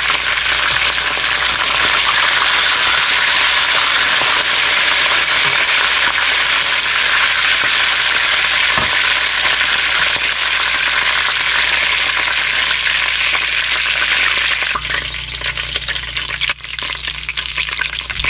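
Chicken drumsticks frying in hot oil in a wok, a loud steady sizzle. The sizzle thins and turns more uneven about fifteen seconds in as the last pieces are lifted out, leaving the oil bubbling on its own.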